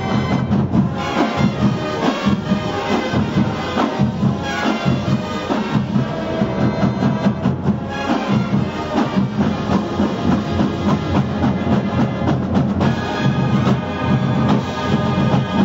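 Marching band playing a brass tune, with sousaphones and a drumline keeping a steady beat.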